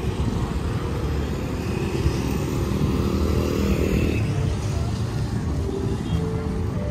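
Street traffic: motor vehicle engines running past, with one engine note swelling and fading about halfway through.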